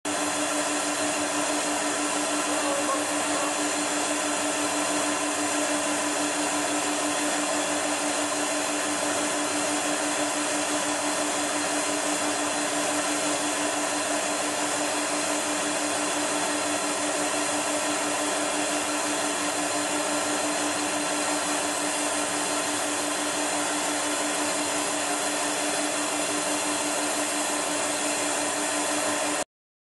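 Vacuum motor running steadily: an even whoosh over a constant hum. It cuts off abruptly near the end.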